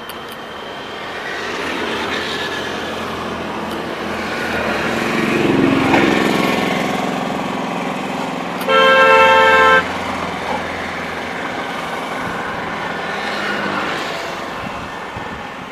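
An electric locomotive's horn sounds one blast of about a second over the running noise of an approaching electric-hauled passenger train. The train's rumble swells to a peak about six seconds in, then eases.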